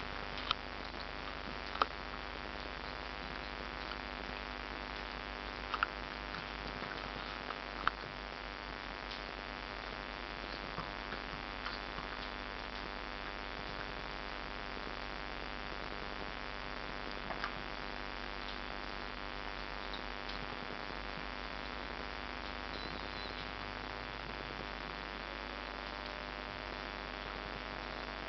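Steady electrical hum and hiss of recording noise, broken by a few brief faint clicks, most of them in the first eight seconds.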